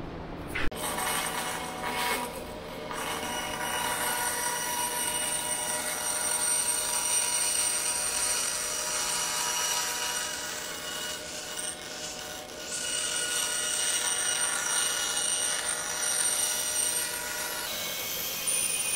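A sharp click less than a second in, then a bandsaw running steadily and cutting a large thin plywood sheet, the aircraft's bottom sheeting, being fed through the blade.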